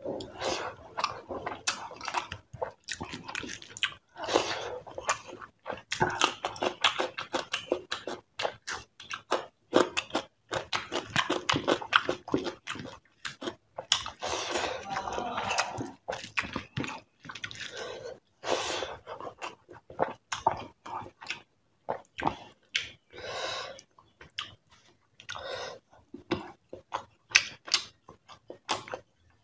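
Close-miked chewing and lip-smacking of a person eating fish curry: wet, irregular mouth clicks and crunches, several a second.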